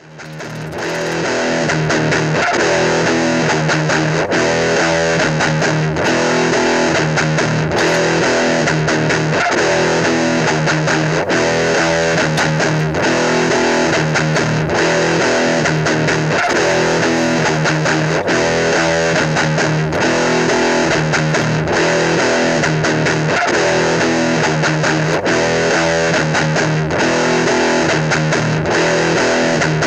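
Rock music led by electric guitar with a steady beat, fading in over the first second or two.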